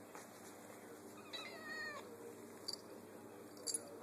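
Domestic cat meowing once, a drawn-out call that falls slightly in pitch about a second and a half in. Two short sharp clicks follow near the end.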